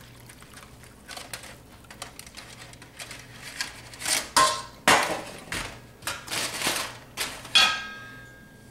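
Roast drippings poured through a small mesh strainer into a glass measuring cup, faint at first. From about four seconds in come knocks and clatter of the metal pan and strainer being handled and set down, and near the end a single ringing metal clink.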